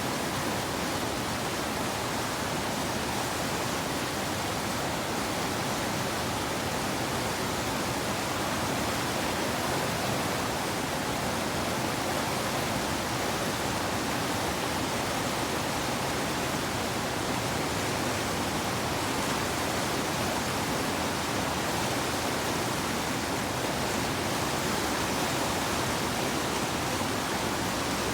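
Rushing whitewater of river rapids, a steady even hiss that does not let up.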